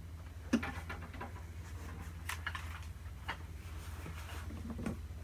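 Scattered light clicks and knocks of objects being handled and packed away, the sharpest about half a second in, over a steady low hum.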